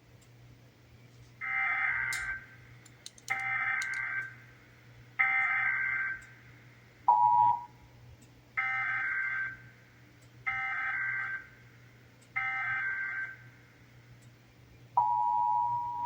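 Emergency Alert System SAME header data bursts: six harsh digital chirps of about a second each, in two sets of three, with a brief two-tone blip between the sets. About a second before the end the steady two-tone EAS attention signal starts.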